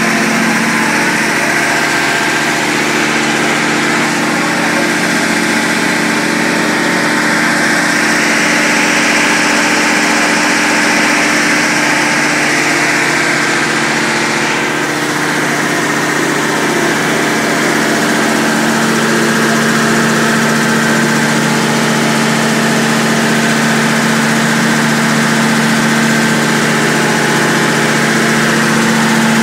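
John Deere 50 kW generator's engine running at a steady speed, with a constant hum that does not change in pitch.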